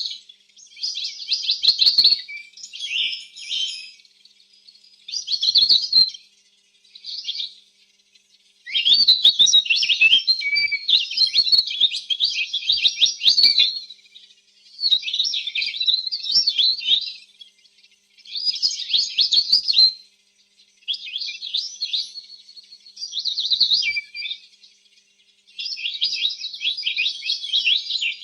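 Domestic canary singing: phrases of fast, high trills and warbles, each lasting one to four seconds, broken by short pauses.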